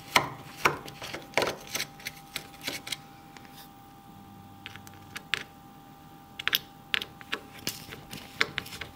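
Small screwdriver clicking and scraping on the screws that hold a circuit board in a plastic housing, a run of irregular small clicks that is busiest at the start and again near the end.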